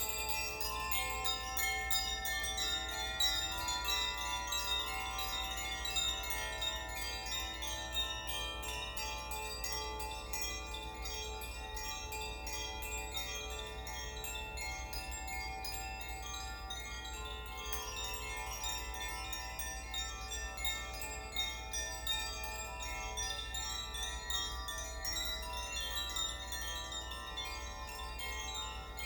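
Koshi chimes swung by hand, the clapper striking the tuned rods inside over and over so that many bright, sustained tones ring and overlap.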